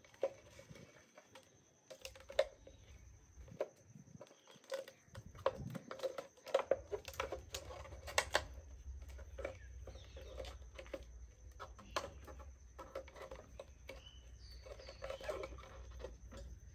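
Scattered light clicks, taps and rustles of hands fitting a plastic bottle onto a bicycle's rear frame beside the back wheel.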